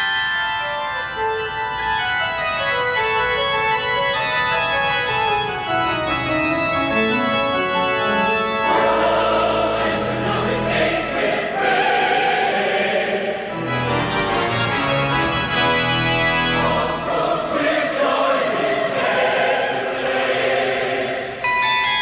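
A 52-bell carillon playing: a long descending cascade of bell notes over the first nine seconds or so, then loud full chords of ringing bells with deep bass bells.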